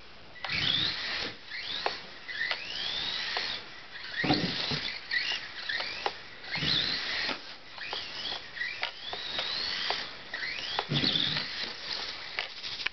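Losi Micro-T RC truck's small electric motor whining in short bursts, the pitch rising each time it accelerates, with dull thumps and clatters as the little truck lands jumps and tumbles on carpet, the loudest about a second in, at about four seconds, near seven seconds and near eleven seconds.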